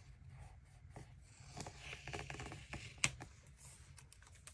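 Faint paper rustling and small taps as stickers and planner pages are handled and pressed down, with one sharp click about three seconds in.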